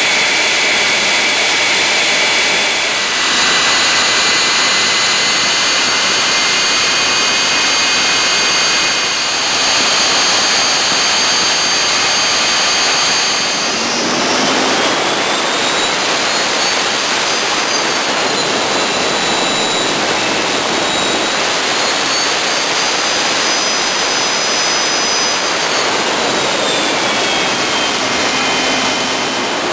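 Westinghouse J34 turbojet running on a test stand: a loud, steady rushing roar with a high whine over it. In the second half the whine glides up in pitch, drops back, rises again and falls once more.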